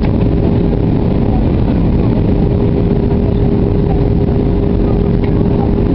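Steady jet airliner cabin noise heard from a window seat: an even drone of engines and airflow with a steady hum running through it.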